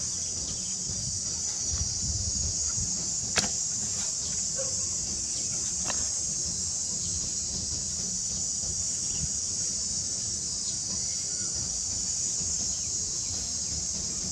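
A steady, high-pitched insect chorus fills the air, with a low rumble underneath. One sharp click sounds about three and a half seconds in, and a fainter one near six seconds.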